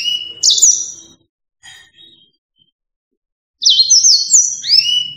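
Yellow-fronted canary singing: a short phrase of high whistled notes, a pause of a couple of seconds, then a second, longer phrase of whistles with quick slurs up and down.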